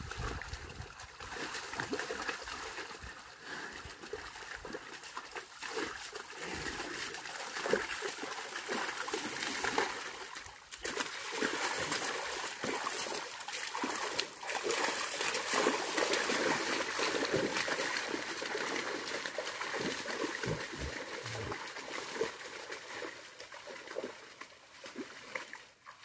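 Carabao and wooden plow wading through a flooded rice paddy: continuous, irregular splashing and sloshing of muddy water as hooves and plow churn the mud.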